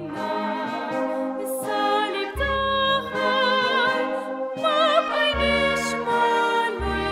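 Religious hymn: a solo female voice singing with wide vibrato over instrumental accompaniment, with deep bass notes entering every few seconds.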